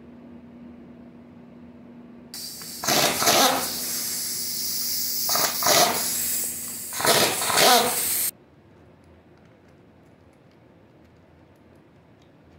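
Air impact wrench running for about six seconds, hissing air with several louder surges of hammering, as it loosens the camshaft bearing cap bolts on a Toyota Hilux cylinder head. It starts about two seconds in and cuts off sharply.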